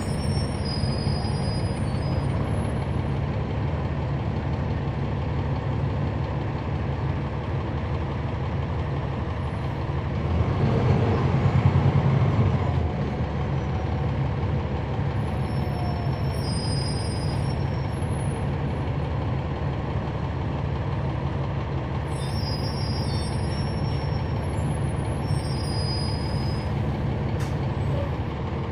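Cummins ISL9 inline-six diesel of a NABI 416.15 transit bus, heard on board, running steadily. About ten seconds in, a louder swell lasts two or three seconds.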